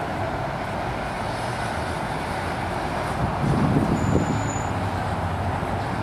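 Steady outdoor background noise with a low vehicle rumble, typical of traffic. Past the middle, a louder low rumble swells for about a second, then falls back.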